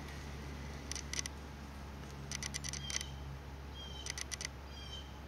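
Camera autofocus motor hunting: three short clusters of small clicks with faint rising chirps, over a low steady hum.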